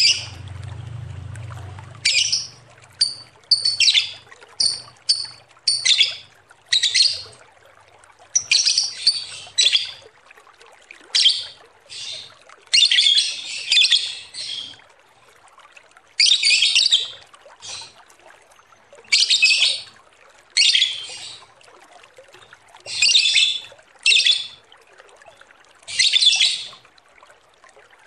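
Lovebird singing its shrill, chattering 'ngekek' song in repeated bursts of under a second to about a second each, with short pauses between them.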